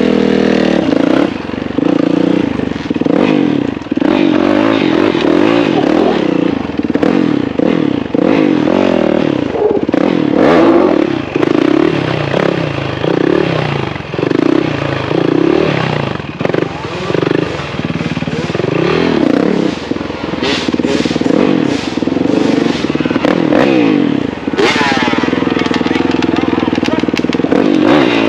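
Motorcycle engine running, its pitch wavering up and down as the throttle is worked.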